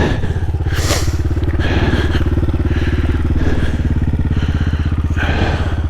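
CSC TT250 dual-sport motorcycle's single-cylinder four-stroke engine idling steadily, with a single knock about a second in.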